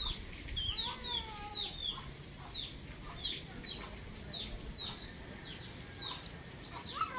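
Chickens calling in the background: a steady run of short, high, down-slurred calls about twice a second, with a few lower clucks around the first second and again near the end.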